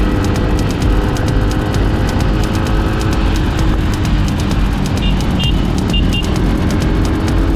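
Motorcycle riding along a road: steady engine note under heavy wind and road rumble. A few short high beeps come about five to six seconds in.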